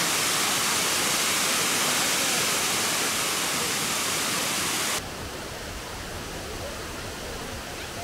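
Kravice waterfall, a tufa cascade, rushing steadily and loudly close by. About five seconds in it cuts suddenly to a quieter, deeper rush of the falls heard from farther off.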